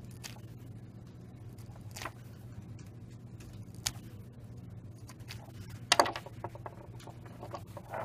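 Small clicks and scratches of a screwdriver tip picking apart the braided wire shield of a cable at a metal M12 connector body, over a steady low hum. The loudest is a quick cluster of clicks about six seconds in.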